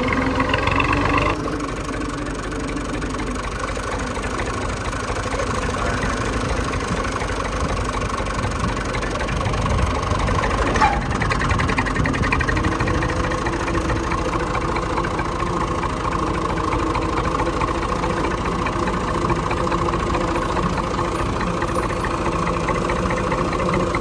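Tractor's diesel engine running steadily as the tractor drives along, a continuous engine drone that drops in level abruptly about a second in, with one brief knock about eleven seconds in.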